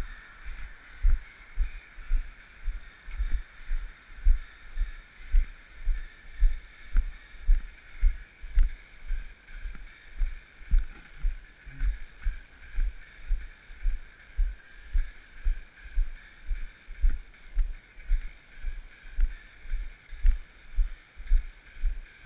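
A jogger's running footfalls: regular low thuds, about two to three a second, with the microphone jolting at each stride, over a steady hiss.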